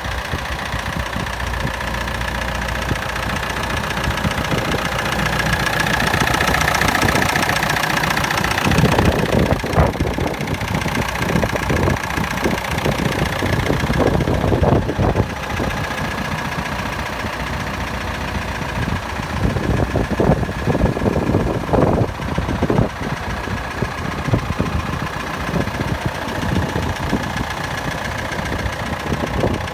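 Case International 1394 tractor's four-cylinder David Brown diesel engine running at a steady idle. From about a third of the way in, scattered knocks and rattles come through over the engine.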